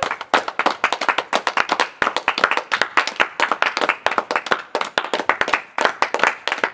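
A small group of people clapping their hands fast and unevenly, many quick claps overlapping.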